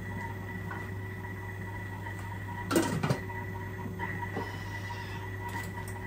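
Kitchen handling sounds while an onion is prepared: a brief clatter about three seconds in and a few light knocks, over a steady electrical hum.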